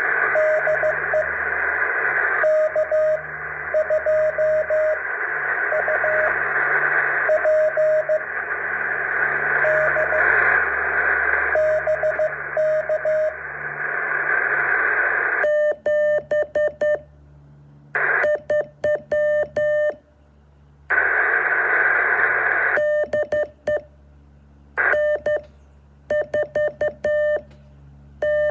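Morse code beeps from a radio receiver: a single tone keyed on and off over steady hiss. About halfway through a stronger, buzzier keyed signal takes over, and the hiss drops out between its characters and returns only in short stretches.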